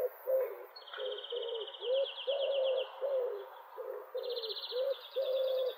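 Bird calls: a string of short low cooing notes, about two a second, with a high trilling song over them in two stretches, from about a second in and again from about four seconds in.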